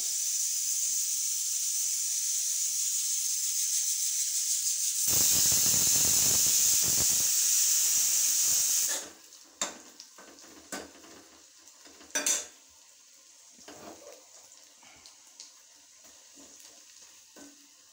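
Hot oil sizzling steadily as food fries, louder for a few seconds midway, then cutting off suddenly about nine seconds in. After that, a few light clinks and knocks of dishes, the sharpest one about twelve seconds in.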